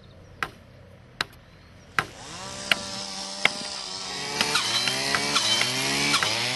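Three sharp knocks, then a chainsaw starts up about two seconds in and is revved again and again, its pitch rising with each rev and getting louder in the second half.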